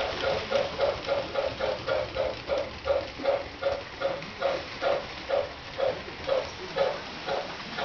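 Steam chuffing from the electronic sound system of an MTH RailKing Pennsylvania K4 model steam locomotive, played through its onboard speaker. The chuffs come in a steady rhythm that slows from about four a second to about two a second, as the locomotive slows down.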